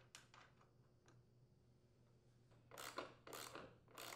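Mostly near silence, then a few faint, short scraping clicks in the last second and a half as a 9/16-inch socket tightens a rear wheel's mounting nut onto the lawn mower's axle.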